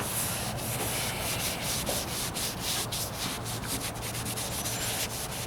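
A rag rubbing back and forth over the freshly sanded body-filler patch on a truck's wheel arch, wiping off sanding dust with grease remover in quick, repeated strokes.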